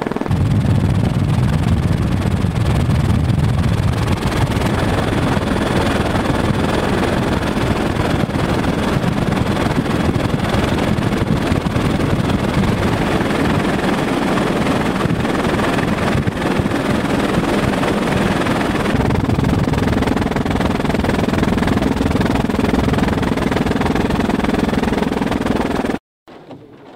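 Helicopter in flight heard from on board, a loud, steady noise of rotor and engine. It cuts off abruptly near the end.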